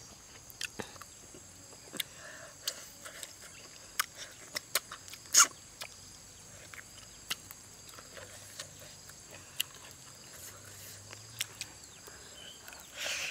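Close-up eating sounds: lips smacking and chewing as grilled fish is eaten by hand, with many sharp wet clicks, the loudest about five seconds in. Insects drone steadily and high in the background.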